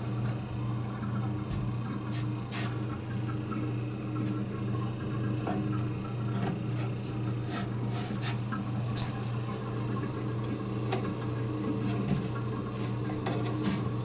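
Compressor of a 1930s General Electric CK Monitor Top refrigerator running with a steady hum, with refrigerant flowing through the evaporator as the unit cools. A few light clicks and taps sound over the hum.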